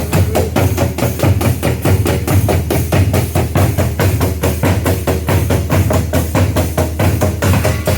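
Percussion ensemble of drums playing a fast, steady rhythm of about five strokes a second over deep, booming drum tones. Some held higher tones join near the end.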